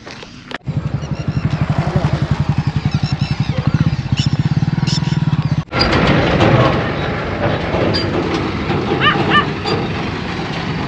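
An engine running with an even, rapid throb, which cuts off abruptly about five and a half seconds in. Busier outdoor noise follows, with a couple of short high chirps near the end.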